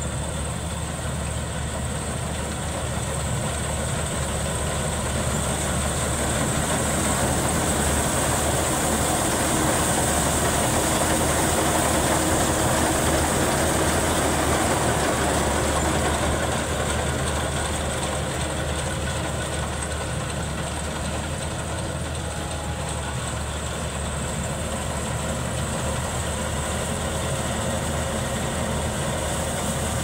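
Maxxi Bimo 102L rice combine harvester running steadily while it cuts standing rice, a continuous engine and machinery drone. It grows louder toward the middle as the machine comes close, then eases off a little.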